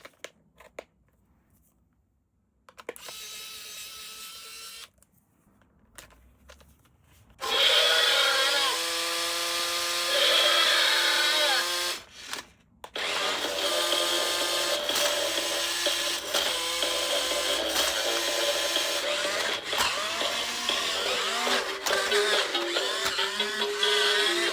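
Battery-powered electronic toy switched on, playing loud electronic music and sound effects over its small whirring motor; a few faint handling clicks come first, and the music starts about seven seconds in.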